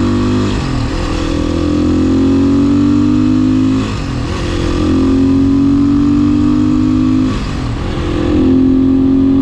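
Beta 500 RS single-cylinder four-stroke engine (about 480 cc) pulling under way on the road. Its pitch climbs steadily in each gear, with three upshifts: about half a second in, about four seconds in, and about seven and a half seconds in.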